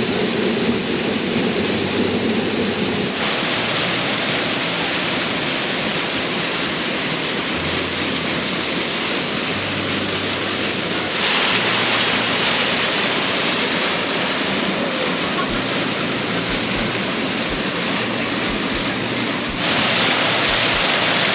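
Steady rushing of a creek waterfall. The sound jumps abruptly louder and brighter about three seconds in, again about eleven seconds in, and once more near the end.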